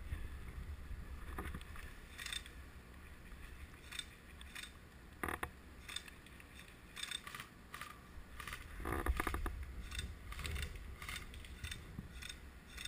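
Footsteps and rustling of clothing and gear as a player moves forward on foot, heard as irregular short crackles and clicks over a low, steady rumble of wind and handling on the microphone. There is a denser patch of rustling about nine seconds in.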